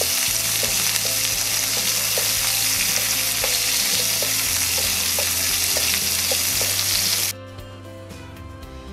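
Asparagus spears sizzling as they fry in a hot pan, turned with a plastic spatula. The sizzle cuts off suddenly about seven seconds in, leaving soft background music.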